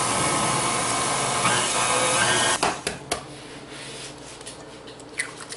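KitchenAid Classic stand mixer running with its flat beater, creaming butter and sugar, a steady motor whine over a grinding rush. It shifts in pitch partway through and cuts off suddenly after about two and a half seconds, followed by a few light clicks.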